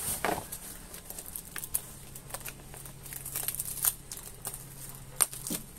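Plastic and foam packaging crinkling and rustling as it is handled by hand in a cardboard box, with many scattered small crackles and a sharper snap about five seconds in.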